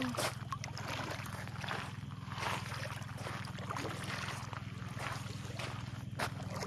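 A steady low mechanical hum, with faint scattered crunches of footsteps on shelly sand.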